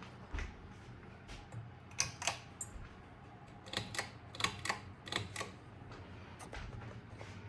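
A dozen or so sharp, irregular clicks and ticks, bunched in the middle of the stretch, over a low steady hum.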